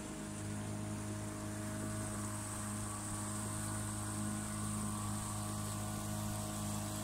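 Small boat's motor running at steady revs: an even, low hum that swells a little just after the start.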